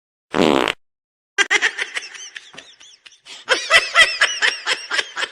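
A brief buzzy blurt, then about a second later laughing in quick, high, rising-and-falling bursts that carry on to the end.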